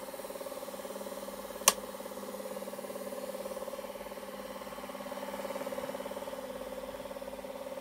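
Noris 8 Super 100 Standard 8mm film projector running, a steady mechanical whirr with a fast, even flutter. A single sharp click just under two seconds in.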